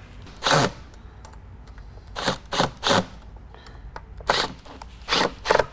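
Ratcheting wrench clicking in short, irregular bursts as nuts are run down onto the motor-mount bolts.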